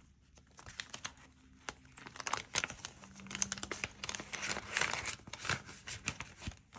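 Paper bills rustling and a clear plastic cash-binder pocket crinkling as a stack of bills is handled and slipped into it, busier and louder from about two seconds in.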